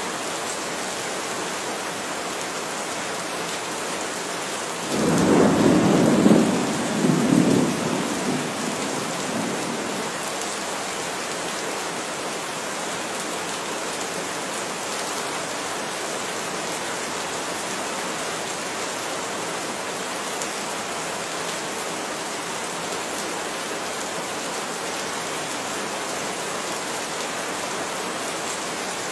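Heavy rain falling in a steady hiss, with a roll of thunder about five seconds in that swells twice and fades away over the next few seconds.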